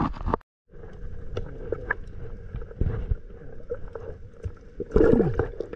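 Muffled water noise picked up by a phone microphone held under the water: sloshing with scattered small knocks and clicks over a steady hum, growing louder and busier about five seconds in. The sound cuts out completely for a moment near the start.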